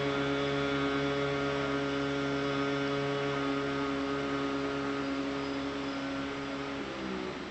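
A man's voice humming one long, steady low note with the mouth closed on a slow yogic exhale, wavering and fading out near the end.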